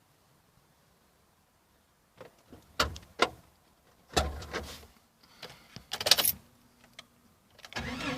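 Scattered clicks and knocks around a Jeep Cherokee XJ, a few sharp and loud, after a couple of seconds of near silence, then a rising rush of noise near the end as the engine is started.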